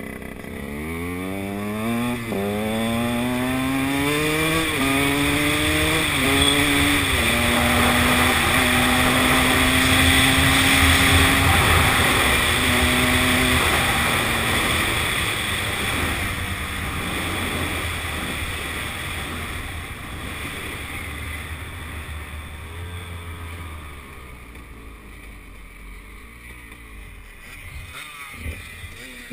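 Two-stroke enduro motorcycle accelerating hard through the gears, its engine pitch climbing and dropping back at each of about four shifts, then holding a steady high note with wind rushing over the helmet. After about fifteen seconds the throttle closes and the engine falls to a lower, steadier running sound as the bike slows.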